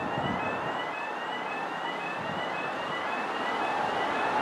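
Level crossing warning alarm sounding, a short rising electronic tone repeating about twice a second, over steady background noise.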